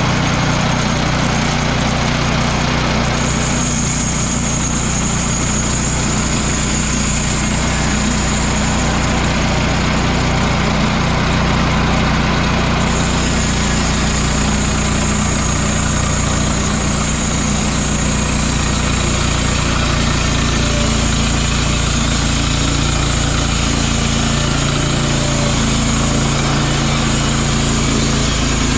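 Woodland Mills HM122 bandsaw mill running steadily on its small Kohler gas engine while the band blade saws lengthwise through a hickory log, with a thin high whine from about three seconds in.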